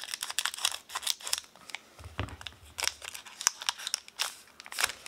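Scissors snipping through the foil top of a trading-card booster pack, a quick run of sharp snips and crackles, then the foil wrapper crinkling as it is pulled open by hand.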